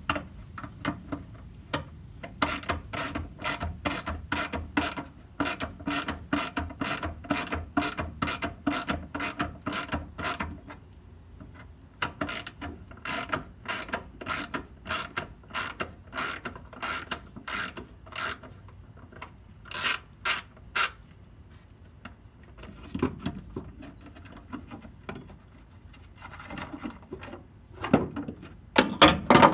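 Hand socket ratchet clicking in quick back-and-forth strokes, about two to three clicks a second, in runs with short pauses, backing out a bolt while the ignition coil is taken off. After the ratcheting stops come scraping and handling noises and a few louder knocks near the end.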